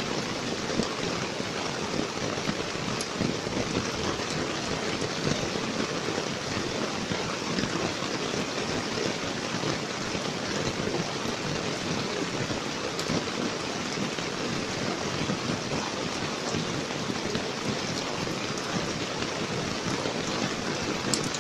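Steady rain falling on wet ground and puddles, heard from just inside a tent, with an even rushing hiss and scattered small drop ticks.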